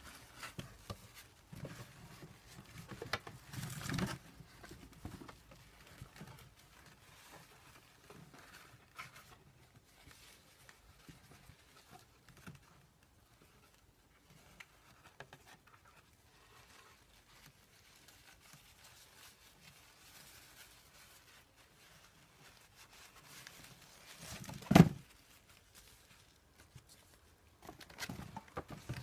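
Paper packing and a cardboard lens box handled by hand: intermittent rustling and crinkling with small taps, louder crackling about 3–4 seconds in and again near the end. One sharp knock, the loudest sound, comes a few seconds before the end.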